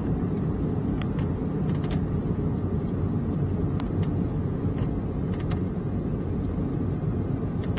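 Steady low road and engine noise of a moving car, heard from inside the cabin, with a few faint ticks.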